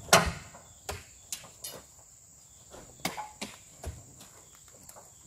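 Oil palm fruit bunches being spiked and heaved up onto a truck's load, giving a series of irregular thuds and knocks, the loudest just after the start. A steady high insect drone runs behind.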